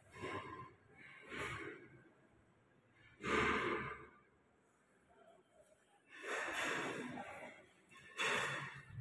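A person breathing out close to a phone's microphone: five noisy breaths, the loudest about three seconds in and a longer one about six seconds in.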